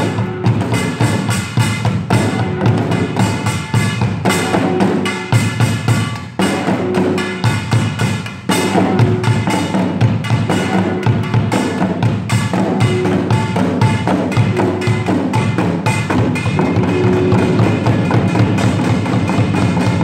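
Samulnori percussion quartet playing: the small kkwaenggwari gong and large jing gong ringing over the janggu hourglass drum and buk barrel drum in a fast, dense rhythm of strikes.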